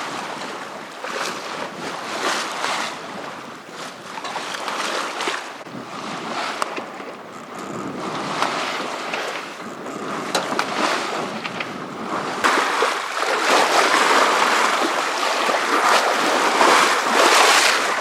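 Water rushing along a sailboat's hull under sail at a slow 4.5 knots on flat seas: a steady hiss that swells and ebbs, stepping up louder about two-thirds of the way through.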